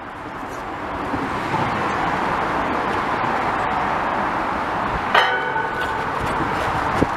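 Road traffic rumbling on the bridge overhead, a steady noise that swells over the first couple of seconds as vehicles pass. A sudden ringing sound cuts in about five seconds in.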